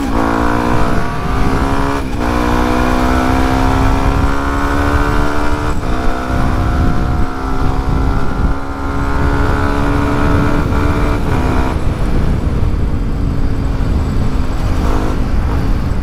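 Yamaha WR155R's 155 cc single-cylinder engine accelerating hard, its note climbing in pitch and dropping back at upshifts about two and six seconds in. Heavy wind noise buffets the microphone throughout, and about twelve seconds in the engine note fades beneath it.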